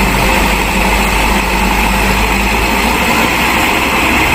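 Mitsubishi Fuso dump truck's diesel engine running steadily while the hydraulic tipper raises the bed.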